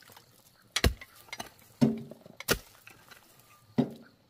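A series of sharp knocks, four of them at irregular spacing, two with a short ringing tail.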